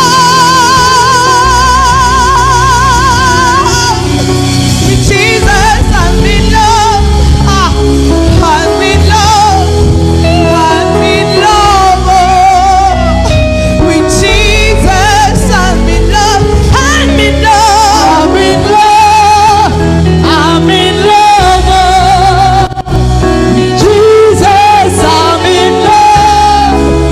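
Spontaneous worship music: a solo singer with a wide vibrato near the start, over held low chords and bass.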